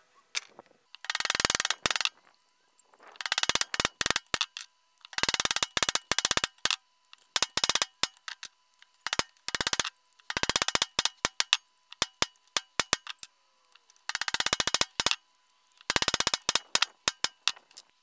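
The edge of a thin piece of rusty sheet steel scraped rapidly back and forth across the end of a steel cylinder: a fast metallic rasping rattle in about nine short bursts separated by pauses.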